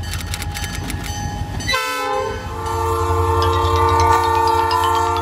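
Railroad locomotive air horn sounding a held chord of several notes over a low, steady rumble, changing abruptly about two seconds in. A rising tone with rapid ticks climbs over it near the end.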